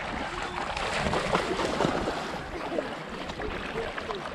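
Shallow seawater splashing and sloshing as a person and a dog wade through it, over a steady rush of water and wind noise.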